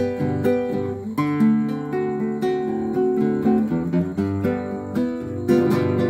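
Classical guitar playing a song introduction, with strummed chords and plucked bass notes in a steady rhythm.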